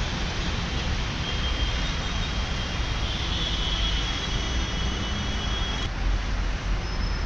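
Steady outdoor road-traffic rumble, with a faint high whine in the middle few seconds.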